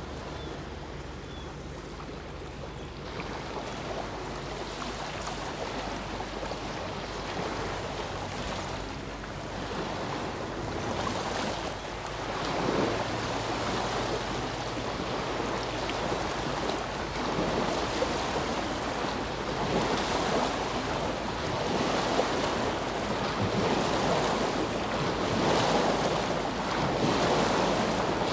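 Small waves, most likely a passing boat's wake, washing against a rock revetment at the river's edge. The wash grows steadily louder, coming in surges every second or two in the second half.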